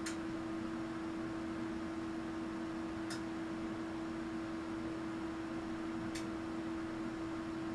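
Steady electrical hum over a faint hiss from the bench test equipment driving the AC test voltage, with a faint tick about every three seconds.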